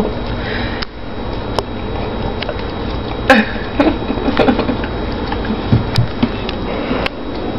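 Small long-haired dog snuffling and licking at a child's face close to the microphone: scattered soft clicks and short scuffling bursts over a steady hiss.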